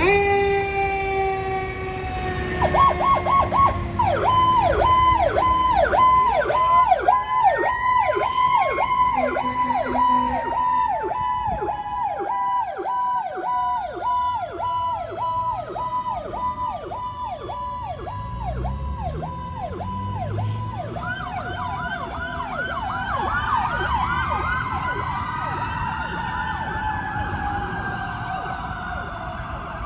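Several fire-apparatus and ambulance electronic sirens sounding together as the vehicles respond emergent: a fast pulsing yelp for much of the time, slower wails rising and falling, and long tones sliding steadily down in pitch as the vehicles draw away.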